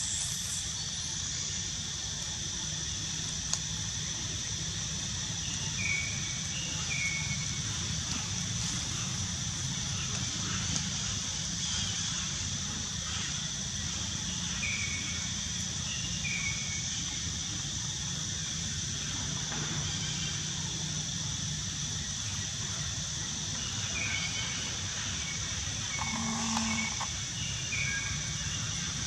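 Steady, high insect drone over a low, even rumble, with short high chirps coming in pairs every few seconds.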